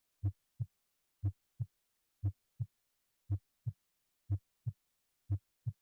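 Normal human heart sounds, S1 and S2, closing of the heart valves: six beats at about one a second. Each beat is a pair of short low thumps close together, the gap of systole, followed by a longer pause, which is diastole.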